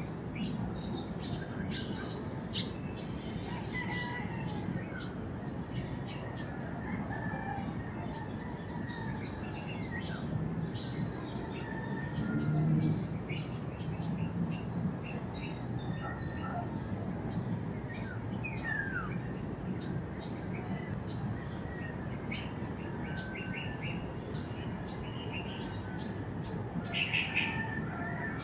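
Wild birds chirping: many short high chirps and a few quick falling calls scattered throughout, over a steady low background rumble and a thin steady high hiss. A brief low rumble swells about halfway through.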